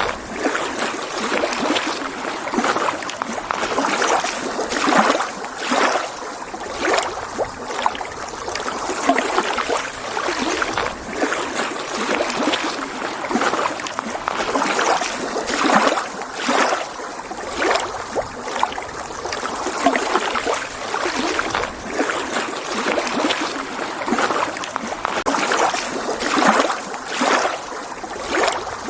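Small lake waves lapping against the shore: an irregular run of short splashes and slaps, several a second, over a steady wash of water.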